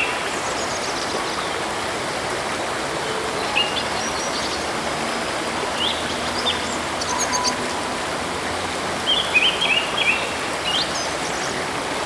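Forest stream rushing steadily over rocks, with birds giving short high chirps now and then, in a small cluster toward the end.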